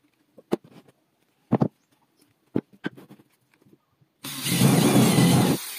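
A few short wooden knocks as blocks are handled. About four seconds in, a hand-held electric drill starts boring into a wooden block and runs for about a second and a half before stopping.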